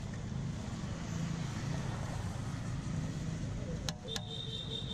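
Steady low rumble of street background; near the end a steel plate is set down on a steel pot, giving two quick metallic clinks and a ringing tone that fades after about a second and a half.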